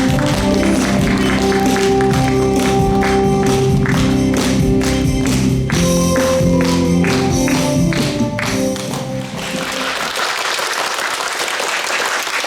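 Background music with held notes and a steady beat, ending about nine seconds in, followed by applause.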